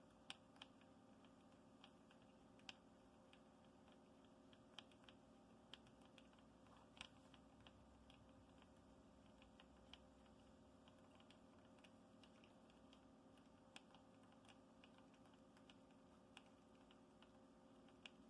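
Near silence: a faint steady room hum with scattered light clicks and ticks at irregular intervals.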